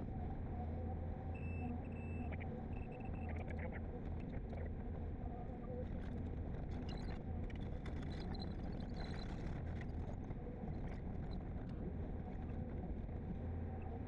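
Excavator's diesel engine running steadily under digging load, heard from inside the cab, while the bucket cuts and dumps soil with scattered clatter in the middle. A few short high beeps sound early on.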